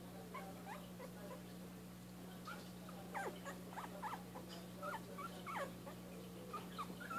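A litter of very young dachshund puppies squeaking and whimpering in short, thin, high squeals that rise and fall in pitch. The squeals come more often from about halfway through, over a steady low hum.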